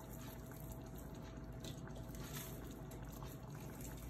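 Faint, steady kitchen background hum with soft squishing of raw ground meat being rolled into meatballs by hand.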